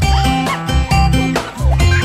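Background music with a steady beat and a repeating bass line.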